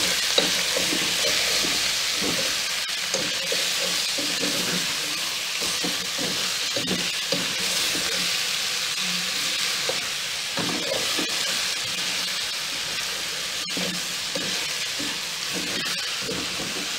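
Chicken pieces and sliced onions sizzling in a pot in the chicken's own fat, with no oil added, a steady frying hiss. A wooden spoon stirs through them, scraping against the pot in short, irregular strokes.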